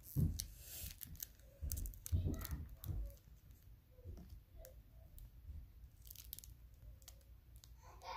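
A foil trading-card pack wrapper crinkling while cards are handled, with irregular clicks and soft knocks; the handling is busiest in the first three seconds.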